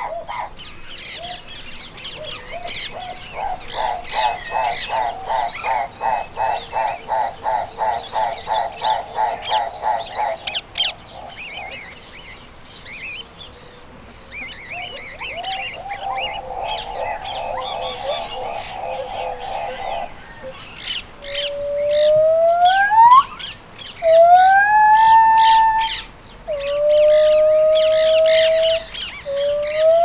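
Small birds chirping, over a rapid pulsing, croaking call that fills most of the first twenty seconds. After about twenty seconds gibbons take over with loud whooping calls, each one a pitch glide that climbs steeply, some flattening into a held note.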